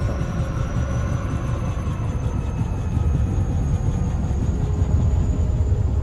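Movie-clip sound effects: a deep, steady engine-like rumble with a thin, high whine slowly rising in pitch.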